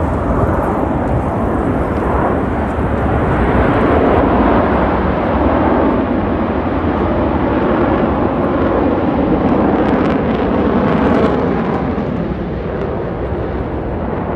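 Jet engine noise from Blue Angels F/A-18 Super Hornets passing overhead: a loud, rushing sound that swells about four seconds in and eases off near the end.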